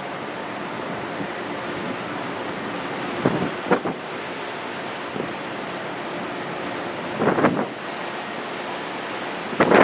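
Steady rush of wind and sea heard from the open deck of a moving ferry. Louder surges of wind on the microphone come three times, about three, seven and nine and a half seconds in.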